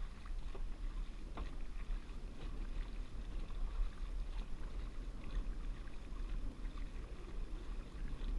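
Dragon boat under way, its paddles splashing in the water in faint, irregular strokes, over a steady low rumble of wind on the microphone.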